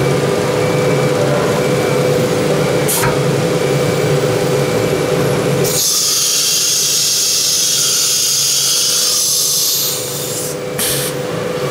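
Automatic tool change on an ATC CNC router with a 9 kW HSD air-cooled spindle: a steady mechanical hum with a click about three seconds in, then a loud hiss of compressed air for about four seconds as the spindle sits at the tool rack, the pneumatic tool release blowing out the spindle taper. A couple of short clicks follow near the end.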